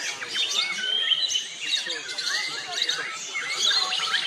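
Several caged white-rumped shamas singing at once in competition, a dense, overlapping mix of rising and falling whistles and quick trills.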